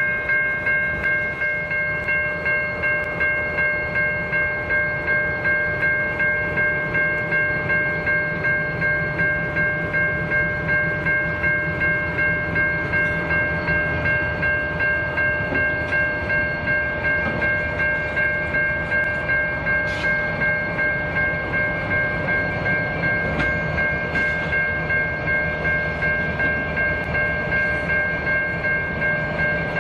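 Level crossing bell ringing in an even, steady rhythm of about one and a half strokes a second. Underneath it is the low, steady running of diesel locomotives moving slowly through the crossing.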